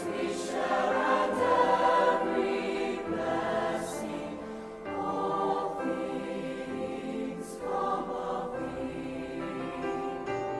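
A choir singing, holding long notes that change every few seconds.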